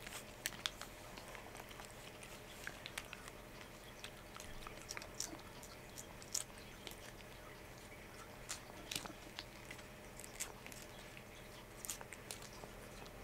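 Cat licking paste treat from a squeezed tube held to its mouth: faint, irregular wet clicks and smacks of tongue and jaws, a few a second.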